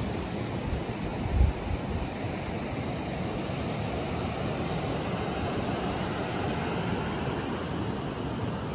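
Steady rush of ocean surf and wind, with a brief low thump about a second and a half in.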